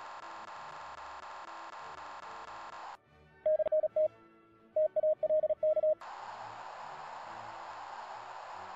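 Receive audio from the CQ100 internet ham-radio transceiver program as it is tuned across bands: a steady buzz for about three seconds, then a single Morse code tone keyed on and off from a code-practice beacon, then a steady hiss of band static.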